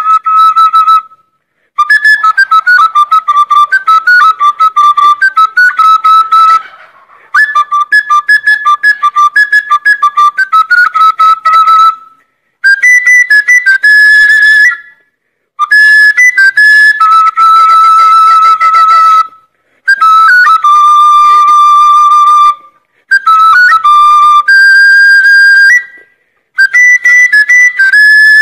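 A high, trilling flute-like whistle tune in short phrases, about eight of them, each cut off by a sudden silence.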